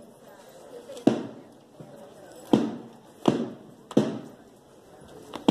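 Slow, regular struck beats, one about every second and a half, each sharp with a short ringing decay, marking a slow walking pace; one extra stroke falls between the second and third. Five strokes in all.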